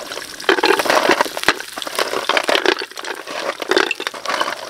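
Spiny sea-snail shells dropped by the handful into a metal cooking pot of hot oil with sautéed aromatics, knocking and clattering against each other and the pot's sides, over a sizzle.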